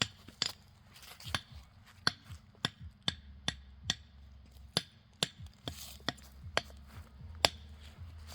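A run of sharp clicks or snaps at uneven spacing, about two a second, over a low steady rumble.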